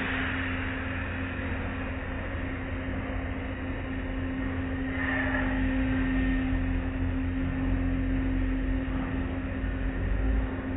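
Automatic car wash heard from inside the car: water spraying and cloth wash strips swishing across the windshield, over a steady low hum and rumble of machinery. Louder swishes come at the start and again about halfway through.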